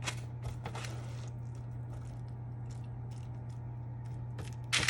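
Scattered light clicks and scrapes from handling the sheet pan of roasted okra, with a sharper click near the end, over a steady low hum.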